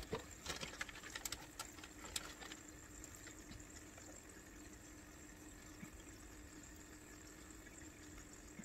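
Faint aquarium water sounds over a steady low hum, with a few light taps and clicks in the first two seconds or so.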